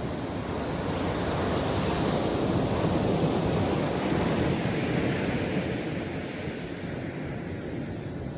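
Sea surf washing on the beach, with wind buffeting the microphone; the wash swells about a second in and eases off after about five seconds.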